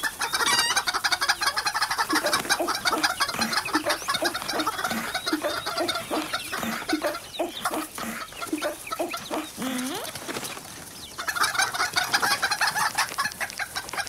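Several hens clucking rapidly and excitedly, a dense flurry of clucks that eases off briefly about ten seconds in and then starts up again.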